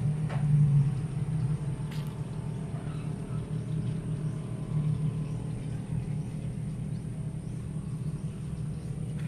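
A steady low rumble, with faint clicks just after the start and about two seconds in.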